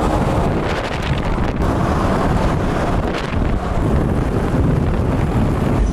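Wind buffeting the microphone of a camera in a moving car, a steady rumble over road and traffic noise.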